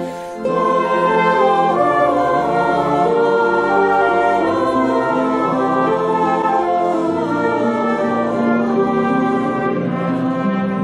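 Instrumental ensemble music: several parts hold and move through sustained chords, after a short dip in level right at the start.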